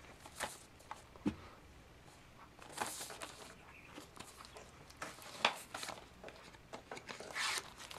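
A Blu-ray case and its packaging being handled and opened: scattered soft clicks and brief plastic rustles.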